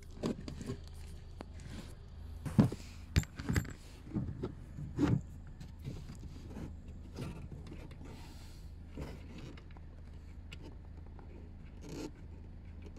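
Irregular metallic clinks, knocks and scrapes of a hand wrench working a 10 mm bolt that holds the rear light unit, behind the boot trim. The loudest clanks come in the first five seconds, then fainter rustling and handling.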